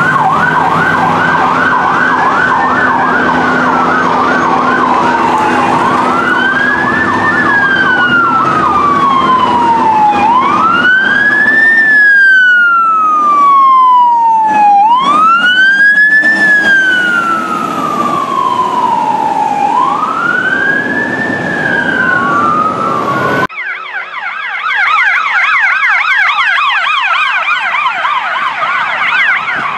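Emergency vehicle siren going from a brief fast yelp into a slow wail that rises quickly and falls away slowly, about one cycle every four to five seconds, over a steady low hum. About three-quarters of the way through it cuts abruptly to a different siren warbling fast at a higher pitch.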